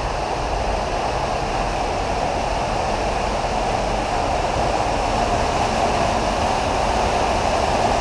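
Waterfall in a limestone cave, a steady, even rush of falling water.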